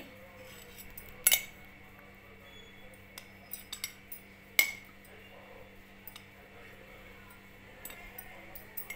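Steel spoon clinking against a glass tumbler and steel bowl while chilli powder is scooped into the tumbler. Two sharp ringing clinks, one about a second in and one past four seconds, with lighter taps between them and a few faint ones near the end.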